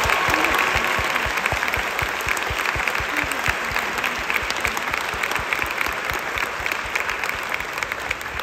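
Audience applauding after an award is announced, with one person clapping close by at about four claps a second.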